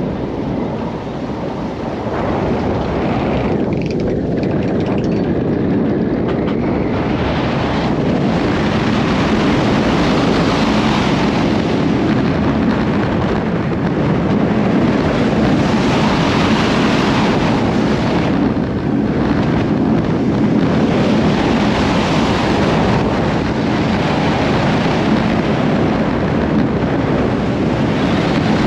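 Vekoma steel roller coaster train running at speed, its wheels rumbling on the track under a steady rush of wind over the on-board microphone. The wind rush thins briefly a few seconds in, then surges fuller from about seven seconds in.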